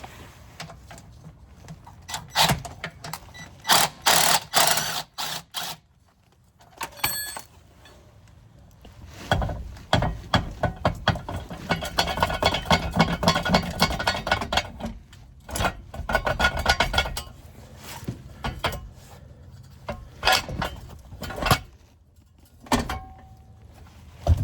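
Hand tools working metal under a car as the last transmission bolt is taken out: scattered clicks and knocks, with a long stretch of rapid clicking and rattling in the middle.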